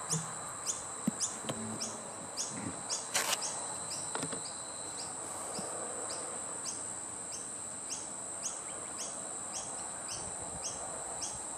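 Insects calling: a steady high-pitched drone with a short chirp repeating about twice a second, and a few faint knocks in the first few seconds.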